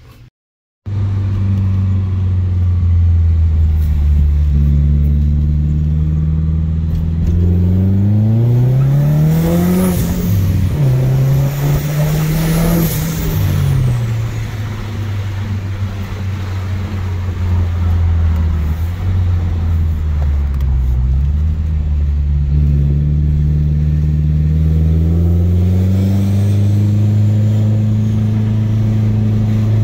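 BMW B48 turbocharged 2.0-litre four-cylinder in a heavily tuned 330e, running on wastegate spring pressure, heard from inside the cabin. It runs steadily, then revs up hard about eight seconds in, drops in pitch and pulls up again before settling. It climbs once more near the end.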